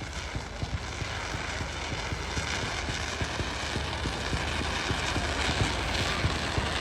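Fireworks display crackling: a dense, fast run of small pops over a steady rush of noise, growing louder towards the end.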